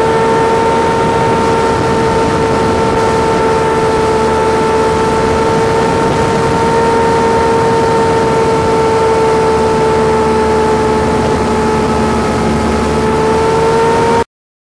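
Boat motor running at a steady cruising speed, a constant whine over a broad rushing noise; the pitch sags slightly about ten seconds in and climbs back near the end.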